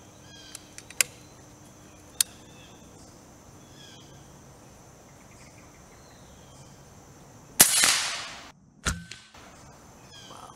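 A few small clicks as the AirForce Texan SS .457 big-bore air rifle is loaded, then, about seven and a half seconds in, a single shot from it with a light 122-grain bullet on a 3000 PSI fill: a sharp crack with a tail that fades over most of a second, followed about a second later by a lower thump.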